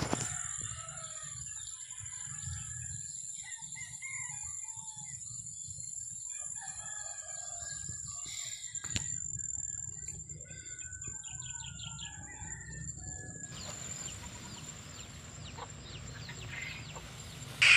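Chickens clucking and a rooster crowing in the background, over a steady high-pitched whine.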